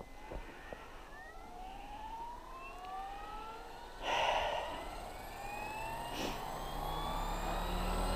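Goblin 700 RC helicopter spooling up its main rotor on the ground: a whine that climbs steadily in pitch and grows louder, with a brief hiss about four seconds in.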